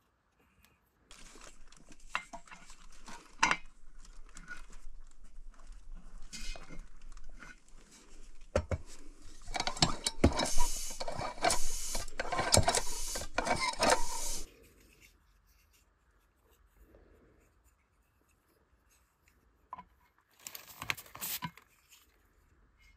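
Metal tools scraping, clinking and knocking on a steel accumulator tank's fittings, loudest from about ten to fourteen seconds in and stopping abruptly. Near the end, a short hiss of air as a pressure gauge is pressed onto the tank's air valve to check its pre-charge.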